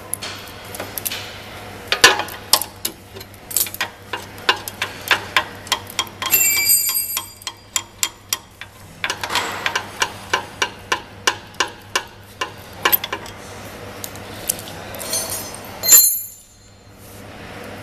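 Sharp clicks and taps of plastic wire-harness plug connectors and cables being handled against a metal housing, coming in runs of about three clicks a second, with a couple of brief metallic rings and a loud knock near the end.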